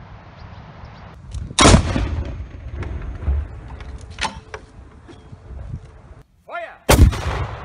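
Two blank shots from home-built breech-loading salute cannons, one about two seconds in and one near the end, each a sharp, loud bang that trails off over about a second.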